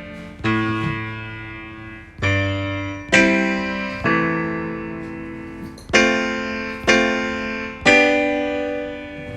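GarageBand Smart Piano, a sampled piano, playing a slow series of block chords tapped on the touchscreen chord strips, about seven chords, each struck and left to ring and fade.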